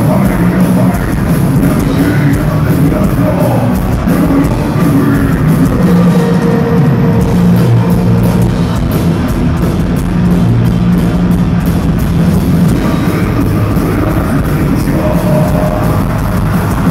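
Death metal band playing live and loud: distorted electric guitars, bass and drum kit with a vocalist singing over them, heard from the audience.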